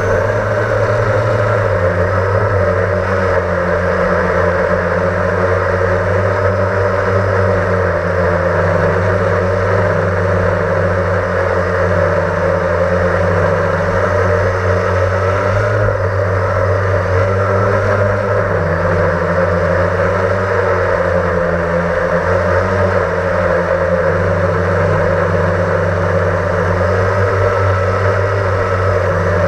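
Blade 350 QX quadcopter's electric motors and propellers running steadily, heard close up through the camera mounted on the quad, their pitch shifting slightly up and down as the motor speeds adjust.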